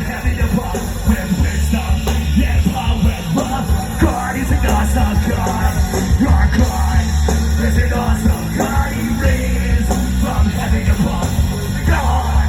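A ska-punk band playing live and loud, with a heavy, boomy low end.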